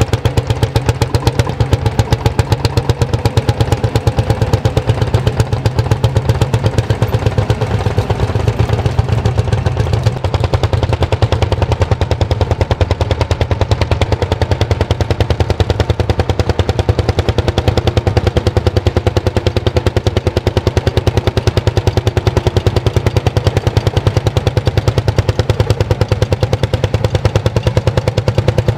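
Old tractor engine running steadily under load with a fast, even beat while pulling a plough.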